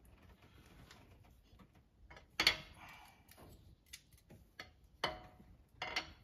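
Steel straight edge and feeler gauge being set down and shifted on the bare cast-iron deck of a Land Rover 2.25 petrol engine block while it is checked for warping: a few sharp metal clicks and taps, the loudest about two and a half seconds in and two more around five and six seconds in.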